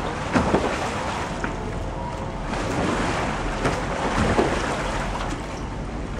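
Water splashing and sloshing as a sea kayak is capsized and rolled back upright, with splashes about half a second in and again around four seconds in.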